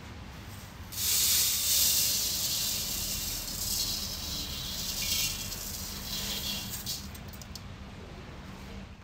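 Dry rice grains being poured, a rattling hiss that starts suddenly about a second in and tapers off near seven seconds.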